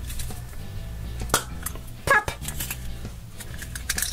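Yellow plastic Kinder Surprise capsule handled and pried open by hand: several sharp plastic clicks and snaps, the loudest about two seconds in, with light rustling in between.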